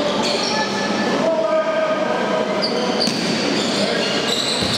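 Sports shoes squeaking on the court floor: many short squeaks at different pitches over the steady murmur of a crowd in the hall, with an occasional knock of a bouncing ball.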